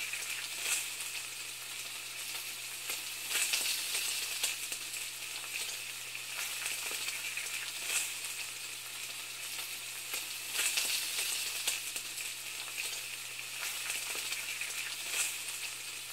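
Steady crackling hiss with scattered louder pops, over a low steady hum.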